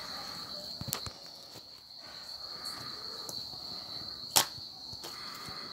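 Clear slime being stretched and pulled, giving a few sharp clicking pops, the loudest about four and a half seconds in. A steady high-pitched whine runs underneath.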